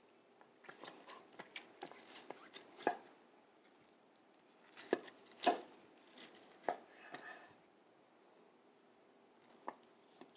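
Carving knife slicing through a bone-in roast pork with a crisp glazed crust, giving faint, irregular scrapes and taps from the blade and carving fork against the meat and the wooden cutting board. The loudest strokes come about three, five and seven seconds in.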